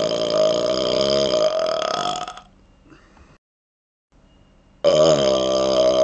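A man burping on command, long and drawn out. One burp runs on until about two seconds in; after a pause of about two and a half seconds, another long burp starts near the end.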